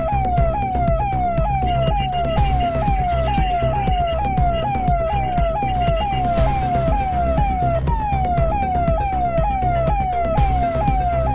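Electronic police siren sounding a falling tone that repeats about twice a second, over a steady low rumble.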